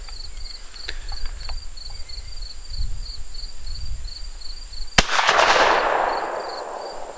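A single 12-gauge shotgun shot, about five seconds in, from a Remington Model 1889 side-by-side with external hammers; this is the second barrel, the left, fired from the shoulder. The report rings out and dies away over about two seconds. Before it come a few faint clicks.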